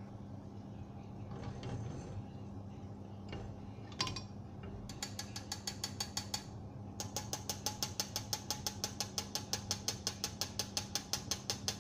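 A metal spoon tapping rapidly against a wire spider skimmer held over the frying pot, about six light metallic clicks a second, shaking the hot oil off freshly fried zeppole so it drains back into the pot. The tapping starts about five seconds in, pauses briefly, then keeps on, over a low steady hum.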